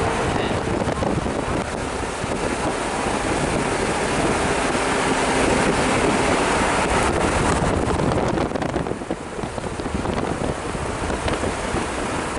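Wind rushing over the microphone and road noise from a vehicle driving along, a steady loud rush with no engine tone standing out.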